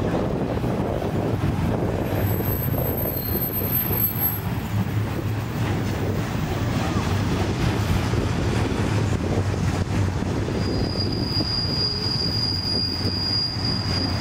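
Freight train of autorack cars rolling past close by: a steady rumble of steel wheels on the rails. A thin, high-pitched wheel squeal comes in about two seconds in and again for the last few seconds.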